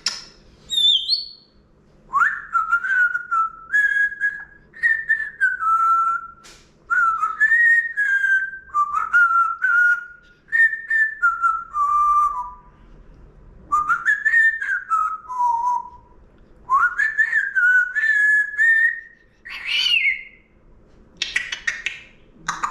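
Congo African grey parrot whistling a series of short phrases, each a few clear notes stepping up and down in pitch, with brief pauses between them and one higher note near the end.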